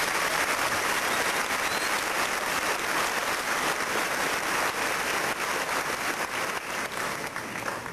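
Audience applause, many hands clapping steadily together, dying down near the end.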